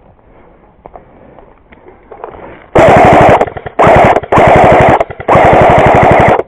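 Airsoft gun firing on full auto: four long, very loud bursts of rapid, evenly paced shots close to the microphone, starting a little under three seconds in.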